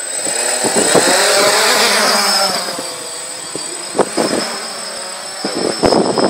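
DJI Phantom quadcopter's four propellers spinning up and lifting it off, a buzzing whine that rises in pitch and then levels off, loudest at takeoff and a little quieter as it climbs away. A few brief knocks come about four and six seconds in.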